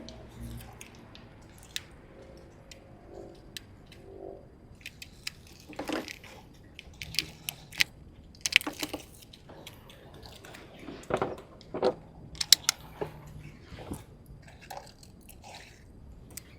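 Irregular sharp clicks, snips and short crunches of hand work on a car's rodent-chewed wiring harness, thickest in the middle of the stretch.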